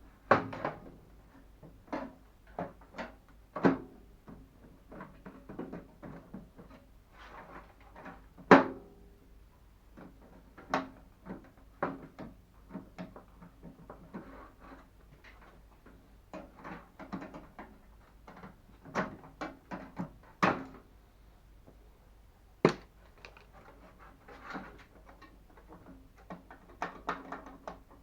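Irregular knocks, clicks and clatter of microwave oven parts being handled and taken apart, the loudest knock about eight and a half seconds in.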